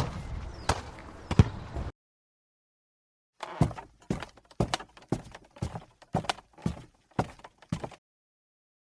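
Horse hooves clip-clopping at an even walk, about two hoof-falls a second, after a short rumbling noise with three sharp knocks that stops about two seconds in.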